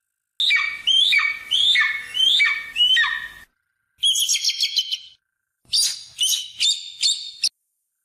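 Harpy eagle calling: first a series of about five loud cries that each slide down in pitch. After a short gap comes a quick run of higher notes, then a few more cries near the end.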